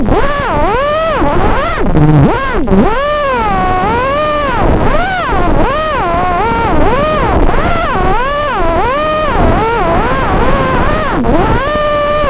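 5-inch FPV racing quadcopter's ZMX 2205 2633kv brushless motors spinning King Kong 5x4 props in flight: a loud motor whine whose pitch swoops up and down continually as the throttle is worked.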